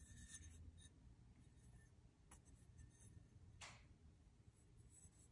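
Near silence: quiet room tone with two faint ticks, about two and three and a half seconds in.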